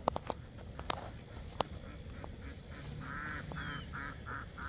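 Farmyard poultry calling: a rapid series of quacking or yelping notes, about four a second, starting about three seconds in and growing fainter.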